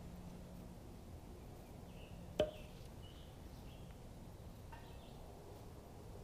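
Quiet woodland background with a few faint, short high chirps and one sharp click about two and a half seconds in.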